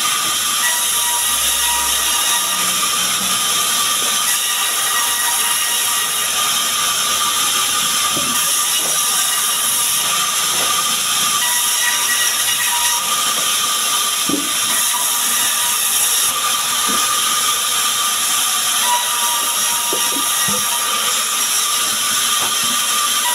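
Band sawmill running steadily while it rips small sengon logs: a loud, steady high whine and hiss of the blade in the wood, with a few faint knocks as the logs are handled.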